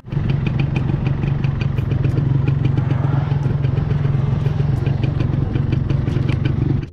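Small motorcycle engine idling steadily, with light ticking over the top.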